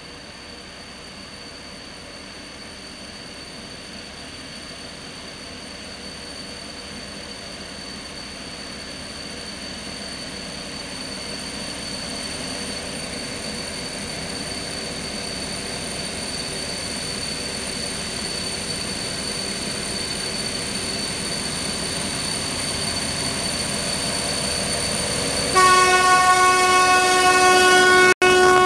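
Freight train hauled by a TEM2 diesel-electric locomotive approaching, its running noise growing steadily louder. About 25 seconds in, the locomotive sounds its horn: one loud, steady blast that is still going at the end.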